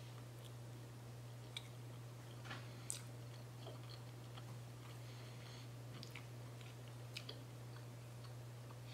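A person chewing a bite of pan-fried chicken tender, with faint, scattered mouth clicks and smacks. A steady low hum sits underneath.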